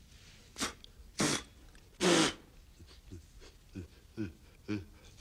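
A man's wordless vocal noises: three breathy bursts, the third the loudest with a falling voiced tail, then a run of short, low vocal sounds, each falling in pitch, about two a second.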